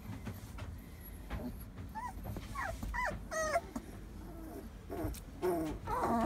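Month-old doodle puppies whimpering: short, high squeaks that slide up and down in pitch, a few about two to three and a half seconds in and more near the end.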